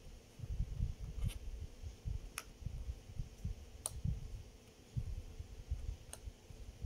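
Four sharp, light plastic clicks from handling a small rocker switch and the multimeter test-lead clips on its terminals, over low dull bumps of hands and leads moving on the table.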